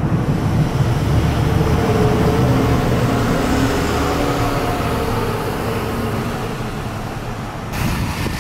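Jet engines of a widebody twin-jet airliner flying away: a loud low rumble with whining tones over it, slowly fading. About eight seconds in the sound changes abruptly.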